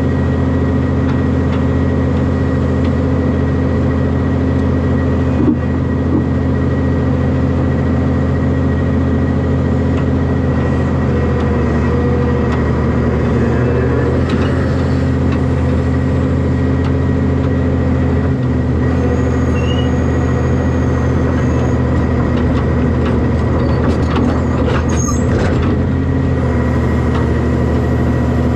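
A heavy diesel engine running at a steady speed throughout, with a brief knock about five seconds in and some light clatter near the end.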